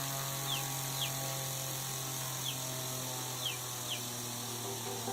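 Small electric motor, the 775 DC motor of a homemade fan, running at a steady speed with an even hum and whine. A few short falling chirps sound over it.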